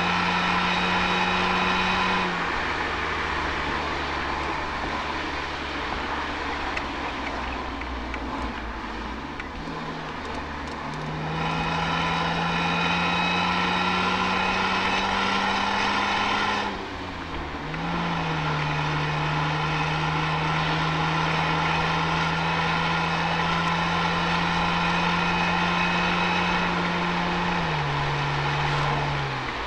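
Toyota Altezza's 1G-FE straight-six running through an Apexi aftermarket exhaust at steady cruising speed, heard from right at the rear bumper with tyre and road noise underneath. The note climbs slowly, then drops in pitch with a brief dip in level about 17 seconds in. It also steps down in pitch about two seconds in and again near the end.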